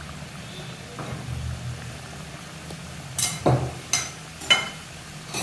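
Aloo samosas deep-frying in hot oil: a steady bubbling sizzle. A little past halfway come four sharp cracks in quick succession over about a second and a half.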